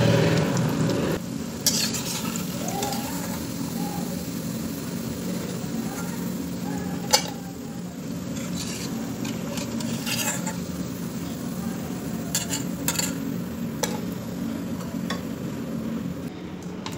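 Chana dal patties deep-frying in hot ghee in a metal kadhai, the ghee sizzling steadily as they cook to a light golden brown. A metal spatula clinks and scrapes against the kadhai now and then as the pieces are lifted out, with one sharp knock about seven seconds in.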